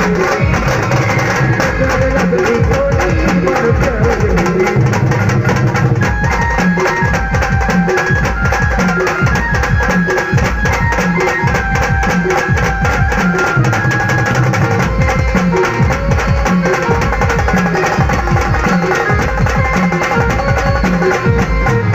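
Live band music: a steady, driving drum beat with a melodic instrument line over it.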